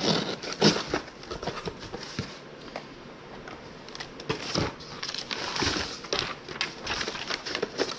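A brake parts kit being unpacked by hand: packaging crinkling and rustling, with irregular small knocks and clicks as parts are moved, busiest at the start and again around the middle.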